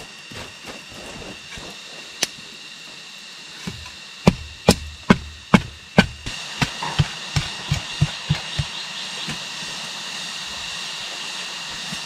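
A run of sharp hand-tool strikes: five loud blows about half a second apart, then a quicker run of lighter ones. A steady high-pitched whine sits under the strikes throughout.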